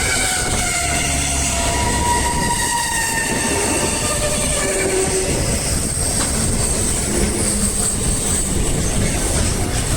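A freight train's wagons rolling past at track level with a steady, loud rumble. Thin squealing tones from the wheels drift in and out over it.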